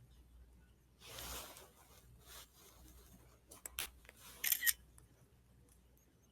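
Faint handling sounds: a soft rustle about a second in, then a few sharp clicks and a short crinkling rustle a little past the middle.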